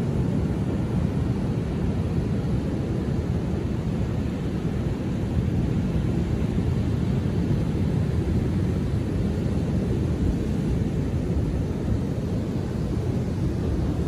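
Ocean surf breaking on a sandy beach: a steady low rush of wave noise with no single crash standing out.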